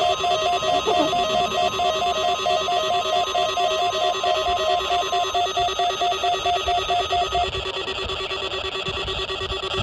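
Several NOAA weather radio receivers sounding their alert beeps at once for a Required Weekly Test: layered electronic beeping at several pitches, with a steady tone that cuts off about five seconds in. The beep patterns stop one after another near the end.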